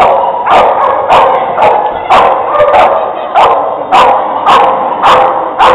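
Dog barking over and over in an even rhythm, about two barks a second, each bark echoing briefly in a large hall.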